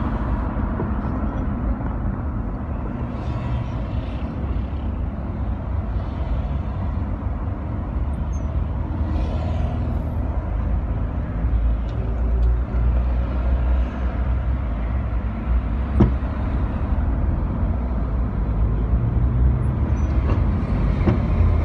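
Road and engine noise heard from inside a moving car in city traffic: a steady low rumble, with one sharp click about three quarters of the way through.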